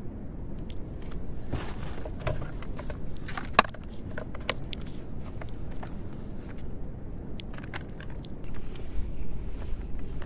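Small clicks and knocks of gear being handled on a kayak, with one sharp click about three and a half seconds in, over a low rumble of wind and water.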